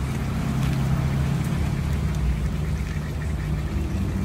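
Steady low mechanical hum, with faint crinkling of the plastic fish bags being handled.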